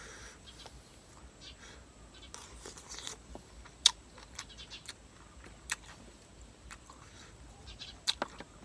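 A person eating close to the microphone: chewing and crunching food, with scattered sharp mouth smacks and clicks, the loudest about four seconds in.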